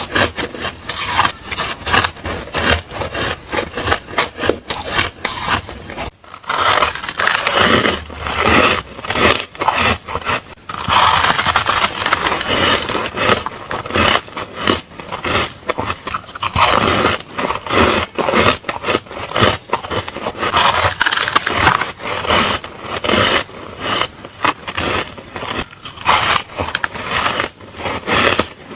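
Ice being bitten and chewed: dense, continuous crunching and cracking, with brief breaks about six and ten seconds in.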